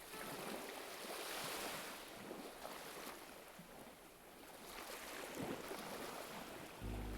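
Sea water washing gently, a soft hiss that swells, falls away and swells again.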